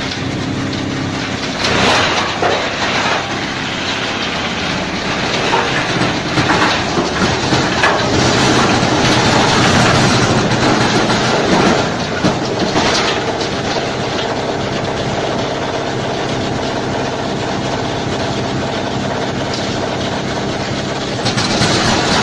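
Tree root shredder running under load, grinding wood: a steady machine drone under a rattling, crunching grinding noise. The noise swells briefly about two seconds in and again from about six to twelve seconds in.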